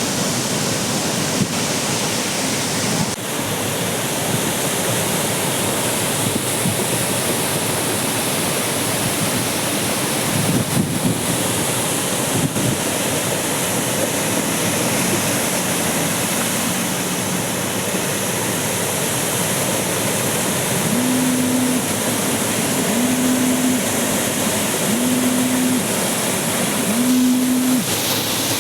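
Heavy rushing water: streamlet floodwater pouring across a road in a steady torrent. In the last third a low tone sounds four times, each about a second long and evenly spaced.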